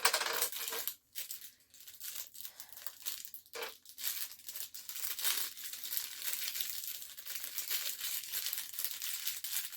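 Plastic packaging crinkling and rustling while items are handled and unwrapped, with bits of tearing; it starts sharply and goes on in a dense, crackly patter.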